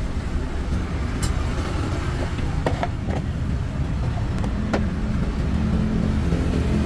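A steady low rumble, like a running motor or traffic, with a few sharp clicks: a cluster a little under three seconds in and another near five seconds, as a metal lid is set onto the metal pancake mold.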